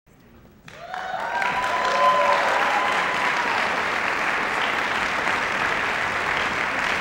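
Audience applause breaking out about a second in and continuing steadily, with a few cheering voices just after it starts.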